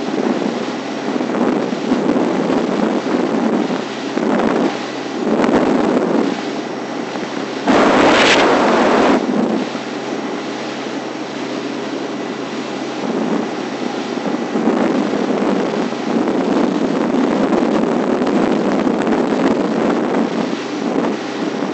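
Wind buffeting the microphone of a boat-mounted camera: a steady rush with gusts that swell and fade, the strongest and deepest about eight seconds in.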